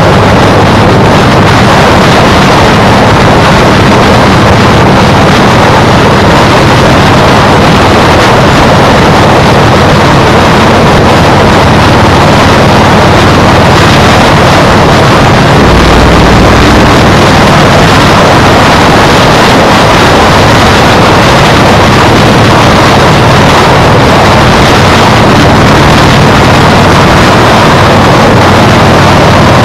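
Loud, steady wind noise on an action camera's microphone while riding at speed, with a low drone underneath. A heavier low buffet comes about halfway through.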